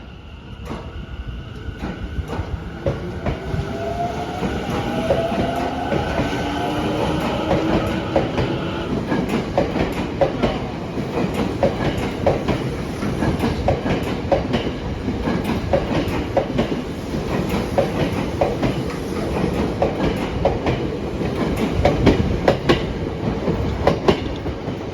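Tokyo Metro 10000 series electric train accelerating away from a station. Its inverter-driven traction motors give several rising tones for the first nine seconds or so, while the wheels clatter rhythmically over rail joints, growing louder as it picks up speed.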